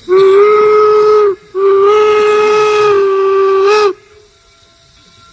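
Steam whistle of the replica Union Pacific No. 119 steam locomotive blowing two blasts as it approaches: a shorter one, then after a brief break a longer one, both loud and holding a steady pitch.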